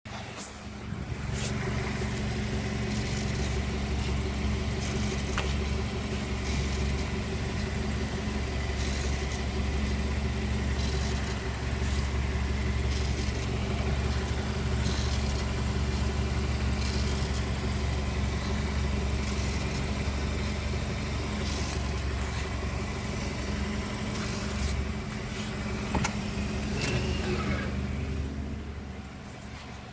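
2012 BMW X3 F25 xDrive28i running at low speed: a steady low hum with a few higher tones over it, tapering off near the end. The owner is recording a brief buzz that comes from the ATC-45L transfer case when braking or lifting off the gas at low speed.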